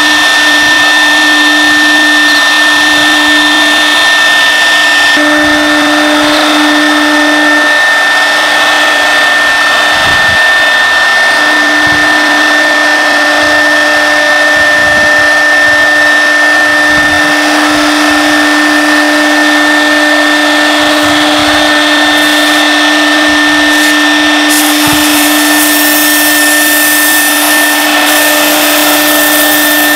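APEX AP2030 CNC wood router's spindle running with a steady high whine while its bit cuts and engraves a wood sheet, over a dense rushing cutting noise.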